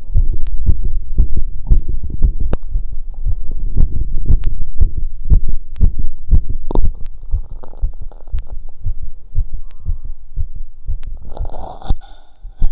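Heartbeat heard through a stethoscope, beating fast and strong after a 2 km run, in a quick train of low thumps. Near the end there is a brief rustling and the beats weaken.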